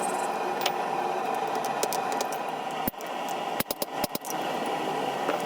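Blacksmith's hammer striking hot steel on an anvil: a single blow about three seconds in, then a quick run of about six blows. A steady forge roar runs underneath.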